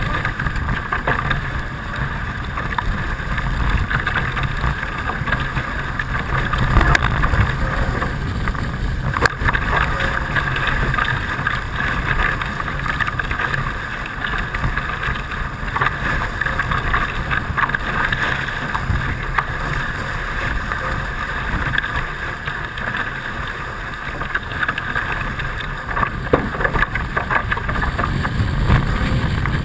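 Wind buffeting the microphone and water rushing past a Hobie 16 catamaran under sail: a steady noise with a low rumble and occasional small knocks.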